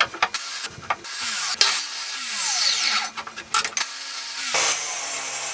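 Metabo sliding mitre saw cutting a strip of wood, switching on and off several times, with the falling whine of the blade coasting down after each cut. Near the end the saw runs steadily, then begins to wind down.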